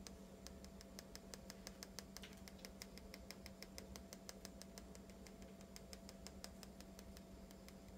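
Faint, rapid even ticking, about six or seven ticks a second, from a small plastic glitter tube tapped with a finger to shake pink glitter out onto slime. The ticking starts about half a second in and fades out near the end.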